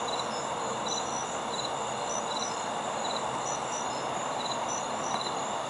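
Crickets chirping at night, short high chirps repeating every half-second or so, over a steady background hiss.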